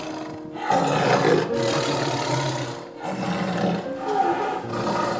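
A big cat roaring several times in a row, harsh rasping roars, over steady background music.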